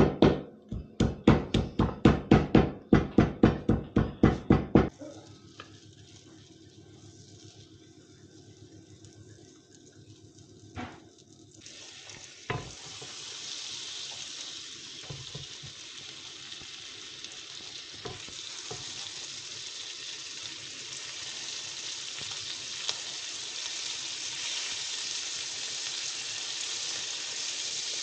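Background music with a steady beat for the first few seconds, then ormer (abalone) slices sizzling as they are laid into hot foaming butter in a frying pan. The sizzle starts a little before halfway and grows as more pieces go in.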